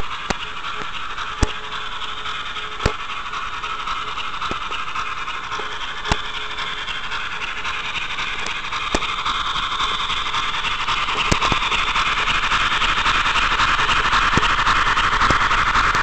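Model train rolling along the track: a steady rolling noise with sharp clicks every second or few, as over rail joints, growing louder near the end.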